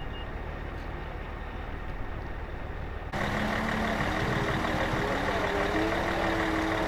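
Motor running steadily; about three seconds in it cuts abruptly to a louder motor sound with a wavering pitch.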